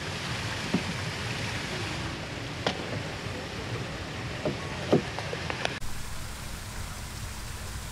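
Spillway water rushing steadily, with a few brief knocks. The rushing sound changes abruptly about six seconds in.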